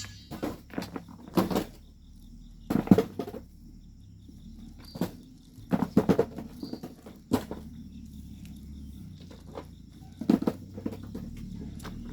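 Hand tools digging and working volcanic sand and stones: irregular scrapes and thuds, about a dozen in all, the loudest about three seconds in and around six seconds.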